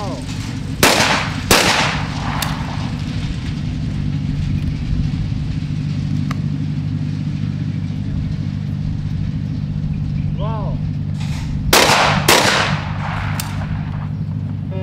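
Over-and-under shotguns firing in skeet: a short shouted call, then two shots about half a second apart. About ten seconds later comes another call and another pair of shots, over a steady low hum.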